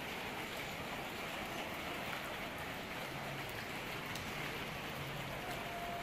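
Steady rain falling, a continuous even hiss of drops on surfaces.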